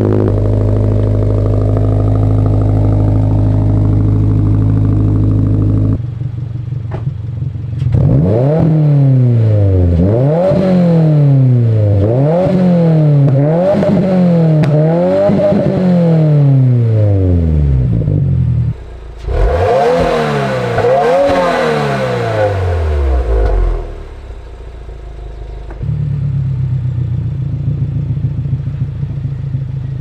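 2022 Subaru WRX's turbocharged 2.4-litre flat-four running through an ETS axle-back muffler delete with resonators. It idles steadily just after start-up, then gives a string of about seven quick free revs, roughly one every second and a half. After a short break come three more revs, and it settles back to a steady idle.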